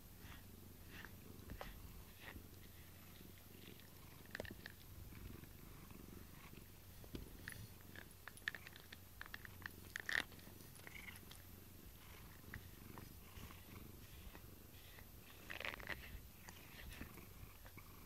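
Domestic cat purring close to the microphone, with scattered small clicks and rustles, the sharpest about ten seconds in.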